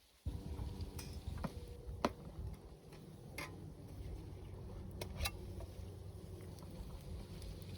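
Wood fire burning in a Dakota fire hole, a pit fire fed by an air tunnel: a steady low rumble with sharp crackles and pops every second or so, two close together about five seconds in.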